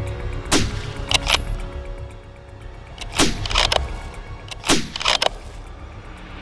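Rifle shots: a string of sharp cracks in three bunches, each crack ringing out briefly, over background music.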